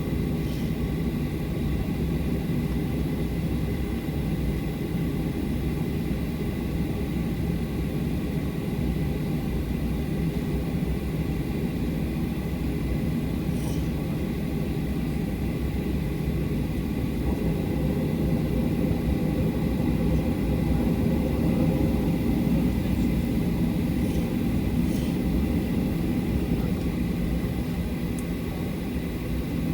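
Cabin noise of a Boeing 737-800 taxiing after landing: its CFM56-7B engines running at low power under a steady rumble and air hiss, with a thin steady high whine. The sound swells a little about two-thirds of the way through.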